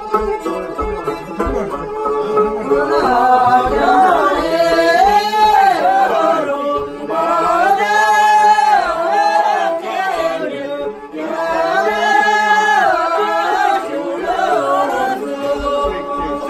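Men and women singing a Tibetan Dingri circle-dance song (gorzhe) together, in long phrases that begin about three seconds in, over strummed dranyen (Tibetan lutes).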